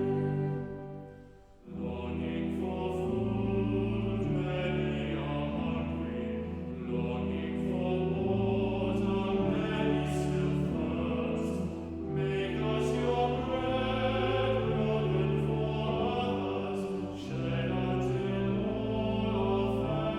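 Hymn sung with instrumental accompaniment, sustained notes phrase by phrase, with a short break about a second and a half in before the next phrase begins.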